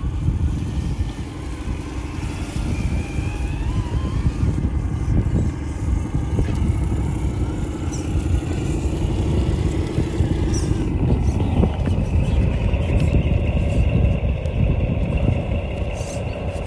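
Electric motors and gearboxes of 1/10-scale RC crawler trucks whining at low speed as they climb loose rock and gravel, over a strong low rumble. The whine's pitch shifts about eleven seconds in.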